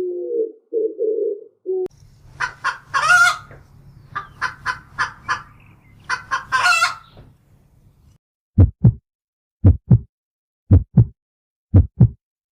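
Chickens clucking in quick sharp calls, with a rooster's longer crowing call twice, after a low cooing call that ends about two seconds in. Near the end come five evenly spaced pairs of low thumps, like a heartbeat.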